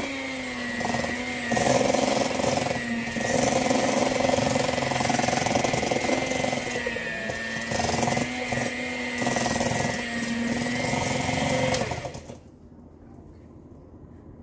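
Electric hand mixer running, its beaters creaming butter, sugar and eggs in a stainless steel bowl; the motor's whine wavers a little as the beaters work through the mixture. It switches off about twelve seconds in.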